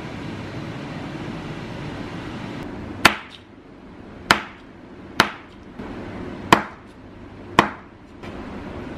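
Kitchen cleaver chopping raw pork belly into cubes on a cutting board: five sharp chops, roughly one a second, beginning about three seconds in.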